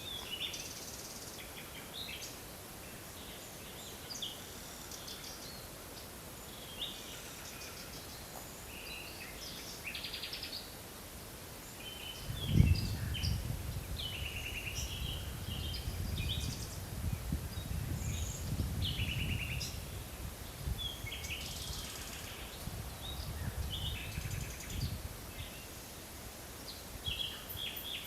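Forest birds singing, several short chirping calls overlapping. About halfway through there is a sudden knock, the loudest sound, followed by a low rumbling noise that rises and falls for most of the rest.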